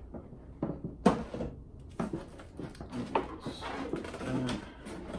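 Stiff clear plastic packaging being handled and lifted out of a cardboard box: a few sharp plastic clicks and knocks, with crinkling in between.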